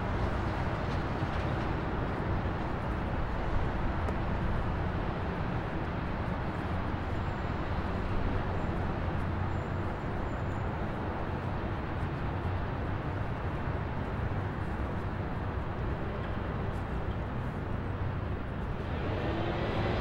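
Steady wind rumble on the microphone and road noise from a vehicle moving along a paved road.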